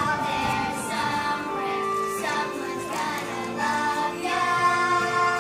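Music with held notes, several sounding together and changing every second or so.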